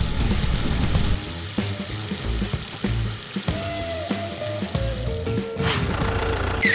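A steady hissing noise, like sizzling or spraying, over background music with a low, pulsing bass.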